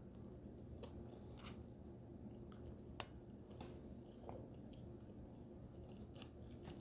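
Faint chewing of a beef burrito: soft wet mouth sounds with scattered small clicks, the sharpest about three seconds in, over a low steady hum.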